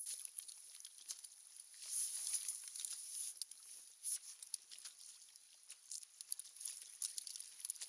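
Water splashing and pattering irregularly as a hooked corvina thrashes at the surface beside the kayak, with small waves slapping the hull.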